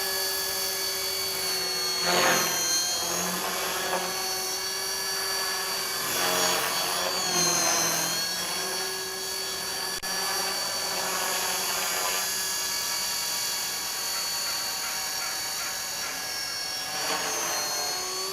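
T-Rex 450 electric RC helicopter in flight: a steady high motor and rotor whine that swells and bends in pitch several times as it is flown around.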